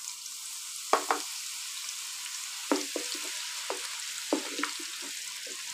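Sliced onions sizzling in hot ghee, a steady hiss just after they go into the pan. A wooden spatula stirring them knocks against the pan several times.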